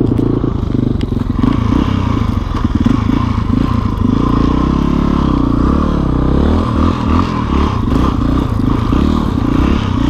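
Dirt bike engine running with the revs rising and falling as the bike pushes through deep snow.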